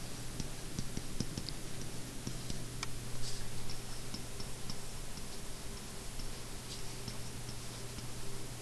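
Light, irregular ticks and taps of a stylus on a tablet as handwriting is written, over a steady low hum.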